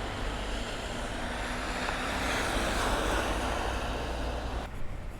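Motor vehicle going by close at hand, a steady rumble of engine and tyre noise that stops abruptly near the end.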